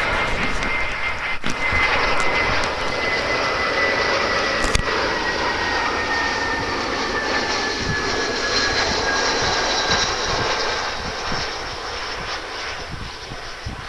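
Airbus A320 jet airliner's twin turbofan engines as it flies low past on approach: a steady loud jet noise with a thin high whine that slowly falls in pitch, then fades near the end.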